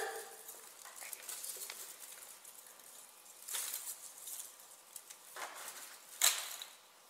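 Soft rustling and shuffling on stage, with a few brief louder rustles about three and a half, five and a half and six seconds in.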